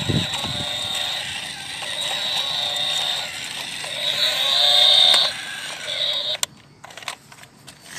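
Battery-operated walking toy cow's small motor and plastic gears whirring with a steady high whine and a creaky, ratcheting churn as it walks. The sound cuts off suddenly about six and a half seconds in, leaving a few faint clicks.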